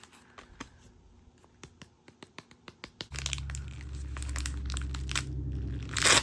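Hands handling and opening crinkly plastic gift packaging: scattered small clicks and crinkles, then a short, loud rip near the end. A low steady hum comes in about three seconds in.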